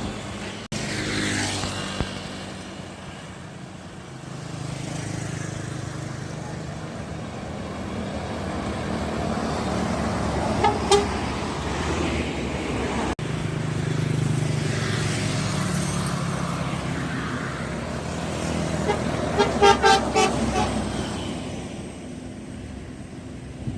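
Buses driving past with engine rumble, sounding their horns in greeting: one short horn toot about 11 seconds in, and a quick run of several short horn blasts near 20 seconds.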